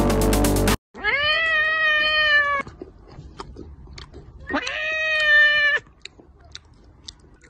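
A domestic cat gives two long, drawn-out meows a few seconds apart. Faint crunches of someone biting fried chicken come between and after them.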